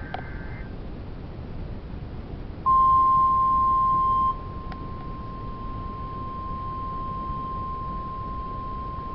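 NOAA Weather Radio 1050 Hz warning alert tone over radio hiss. The steady single tone comes in nearly three seconds in, loud for about a second and a half, then carries on at a lower level. It signals that a warning broadcast is starting.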